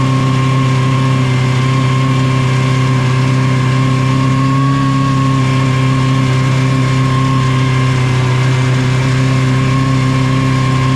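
Small single-engine snow vehicle running under way at a steady speed, its engine holding one even pitch with no revving.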